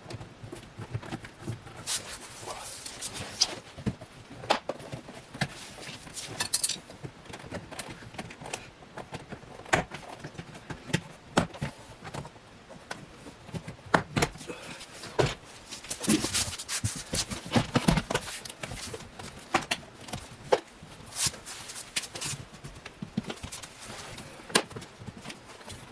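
Plastic door card of a BMW E90 being pried off the door with pry tools: irregular sharp clicks and knocks as the retaining clips snap loose, with a stretch of plastic scraping and rattling about two-thirds of the way in.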